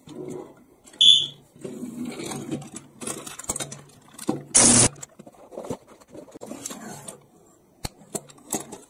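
Plastic toy train set and playset being handled: scattered clicks and knocks, a short high electronic beep about a second in, and a brief burst of a small battery-powered train motor running, about halfway through.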